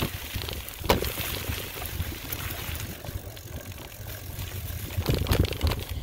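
Mountain bike being ridden over a rough, rooty trail: steady wind rumble on the microphone with the bike clattering over bumps, a sharp knock about a second in and a busier run of rattles near the end.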